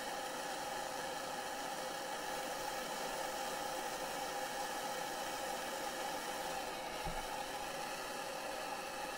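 Handheld gas torch burning with a steady hiss, its flame heating a pan of brass chips to temper a steel clock click spring. A faint low knock about seven seconds in.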